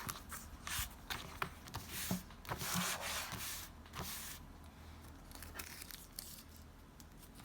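Paper crinkling and tearing in a quick run of short rustles and small taps for the first half, then fainter, sparser rustling. These are the handling sounds of laying out a journal page.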